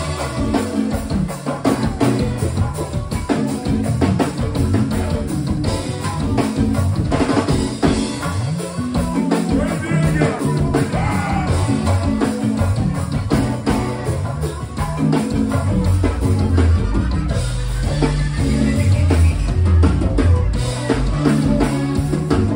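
Live band music in a club: a drum kit keeping a steady beat under a moving bass line, with other instruments and voice in the mix.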